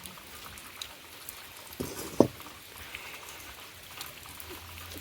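Small fish frying in hot oil, a steady crackling sizzle, with two knocks near the middle.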